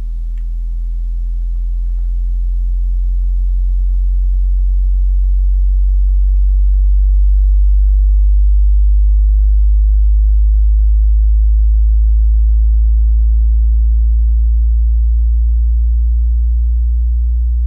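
Car subwoofers playing a slow upward bass sine sweep, a loud low tone that rises from about 41 to 52 Hz. It swells to its loudest about halfway through, then eases off slightly. The amplifier's subsonic filter is set near 35 Hz to keep the subwoofer from bottoming out.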